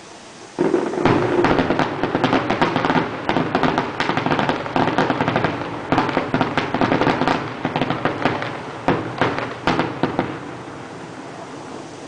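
Fireworks going off in a dense barrage of rapid bangs and crackles. It starts suddenly about half a second in, has a few louder bangs near the end, and thins out shortly before it finishes.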